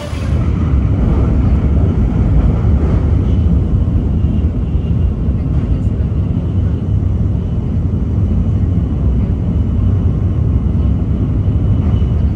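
Train running at speed, heard from inside the carriage as a loud, steady low rumble.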